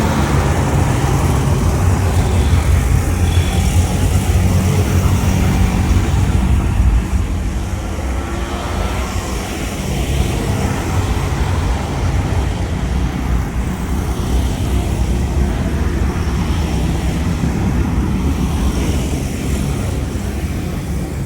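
Jet airliner's engines at takeoff thrust, a loud low rumble that peaks about seven seconds in and then eases off a little.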